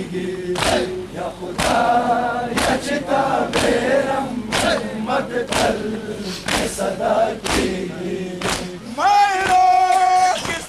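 A crowd of men chanting a Pashto noha together while beating their chests in unison, about one beat a second. Near the end one man's voice rises and holds a long, wavering line over the crowd.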